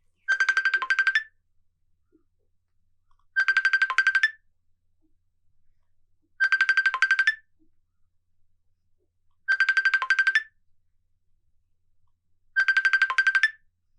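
Facebook Messenger outgoing call ringing tone: a short trilling chime of about a second, repeated five times about every three seconds while the call goes unanswered.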